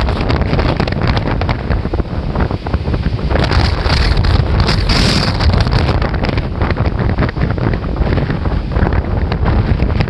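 Heavy typhoon-driven surf breaking and churning, with strong wind buffeting the microphone. A louder hissing surge comes about halfway through.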